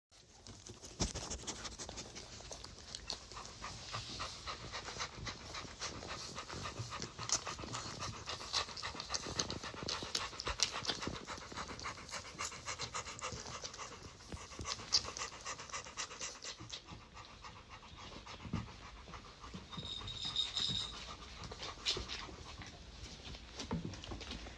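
Six-week-old Labrador puppies nursing from their mother: a run of wet suckling and smacking sounds with dog panting, and a brief high squeak about twenty seconds in.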